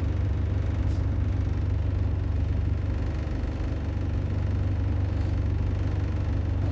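Bus engine running with a steady low drone, heard from inside on the upper deck as the bus slows to a stop at traffic lights.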